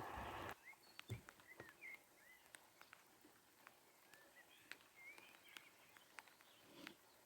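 A loud low rumble cuts off suddenly about half a second in. What follows is a faint rural background of small birds chirping, with scattered soft clicks.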